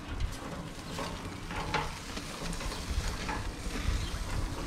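Garlic-buttered crayfish sizzling on a hot gas barbecue grill, with metal tongs clicking and scraping against the grill bars now and then.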